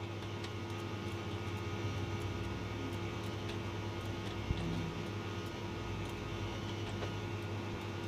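Steady low electrical hum of a computer setup, with a few faint clicks scattered through it.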